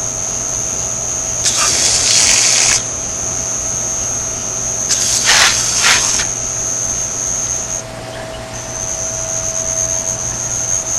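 Aerosol can of wasp-killer spray sprayed in two hissing bursts, each a little over a second long, about three seconds apart. A steady high-pitched whine runs underneath and drops out briefly near the end.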